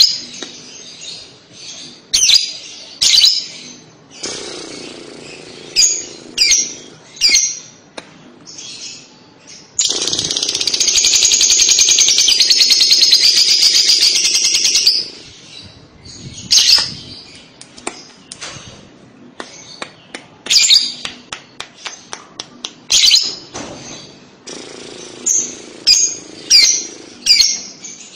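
Lovebird singing: a series of sharp, high chirps, then a long rapid chattering trill (the 'kekek' song) lasting about five seconds, starting about ten seconds in, then more scattered chirps.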